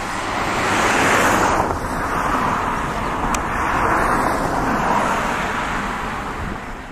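Jet engine noise from an Airbus A350-1000's Rolls-Royce Trent XWB-97 turbofans in flight overhead: a steady broad sound that swells slowly and fades toward the end.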